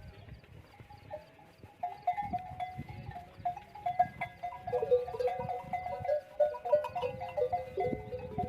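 Camel bells on a herd of camels clanking irregularly, several bells of different pitch ringing over one another. They start sparse and become busier and more continuous from about two seconds in.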